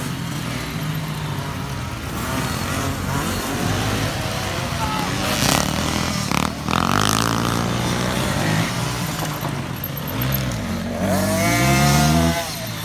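Small youth motocross bikes running on a dirt track, their engine pitch rising and falling as they accelerate and back off; one revs up loudly close by near the end.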